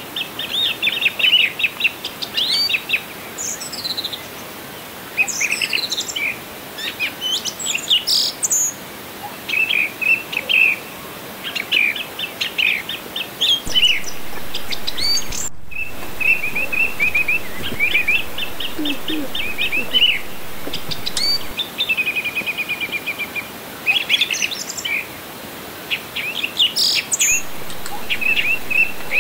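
Small birds chirping and twittering throughout, in quick runs of high repeated notes with now and then a higher sweeping call. The sound cuts out for a moment about halfway.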